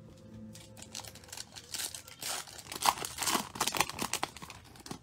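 Foil wrapper of a Bowman Chrome baseball card pack crinkling and tearing as it is opened by hand, a run of irregular crackles loudest in the middle.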